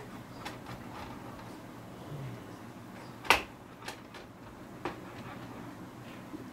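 Light taps and clicks of a cutting utensil on a pizza stone while a pizza is being cut, with one sharper knock about three seconds in.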